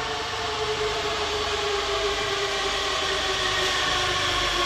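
Madrid Metro 8000-series electric train pulling into an underground station: the traction motors' whine falls slowly in pitch as it slows, over a steady rolling rumble of wheels on rail.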